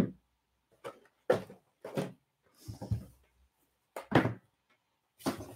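Cardboard boxes being handled and set down: a string of short knocks and scuffs, with a brief scrape about three seconds in.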